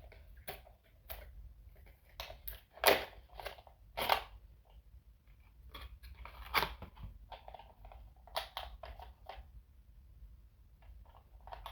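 Packaging being handled and opened: irregular crinkles and clicks, with two louder cracks about three and four seconds in.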